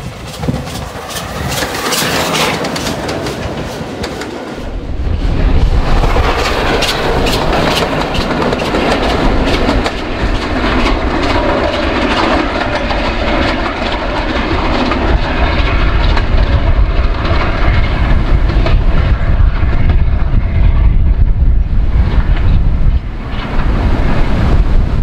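LNER A4 steam locomotive running with its support coach: wheels clacking over rail joints as it approaches and passes, then running away into the distance. From about four seconds in, heavy wind buffets the microphone with a deep continuous rumble.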